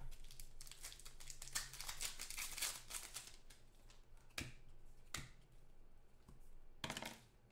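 Football trading cards handled and slid against one another in the hands: a dense run of light scrapes and flicks, then a few separate clicks in the second half.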